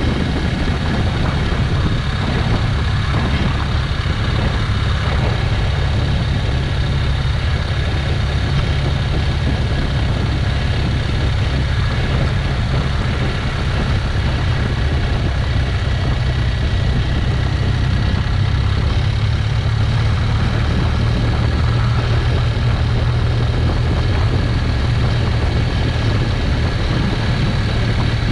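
Motorcycle engine running steadily at cruising speed, heard together with wind rush on an onboard camera.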